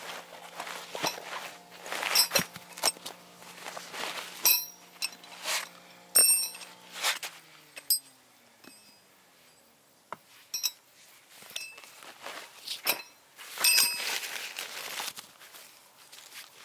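Metal clinking and knocking: a run of sharp knocks, several with a short bright ring, the loudest about four and a half seconds in, six seconds in and near the end.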